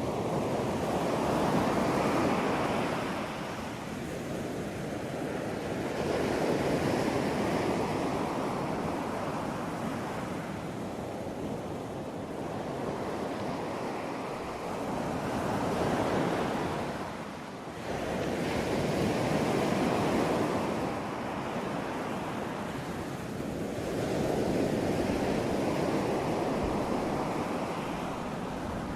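Ocean surf: waves breaking and washing ashore one after another, a swell of rushing noise every four to six seconds.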